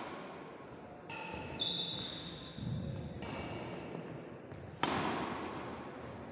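Badminton rally: badminton rackets sharply striking a shuttlecock several times, the loudest hit about five seconds in, with footfalls on the wooden court. Each hit echoes around the large hall.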